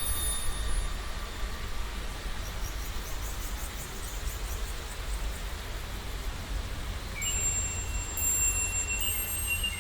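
Edited sea and nature ambience: a steady low rumble under an even hiss, with thin, high, steady ringing tones, like chimes, that come in about seven seconds in.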